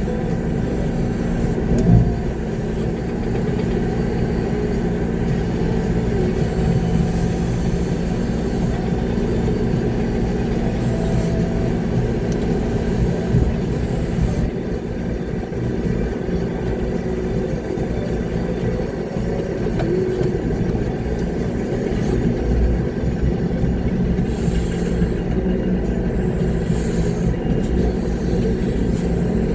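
Concrete mixer truck's diesel engine running steadily, heard from inside the cab, with a single thump about two seconds in.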